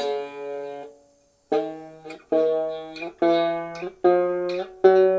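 Banjo strummed in six separate chords, each left to ring, with a pause after the first. A string rattle is heard in them: the newly fitted bridge has lowered the strings so that something is hitting somewhere.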